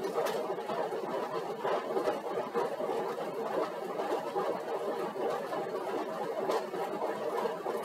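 Stationary exercise bike (cycle ergometer) running steadily under pedalling at a light warm-up load, a continuous fluttering mechanical whir.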